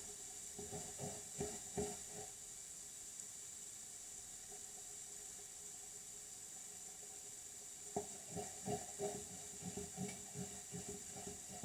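A spoon stirring a cornflour-thickened sauce in a saucepan: two spells of soft, irregular scraping knocks against the pan, in the first two seconds and again from about eight seconds in, over a steady faint hiss.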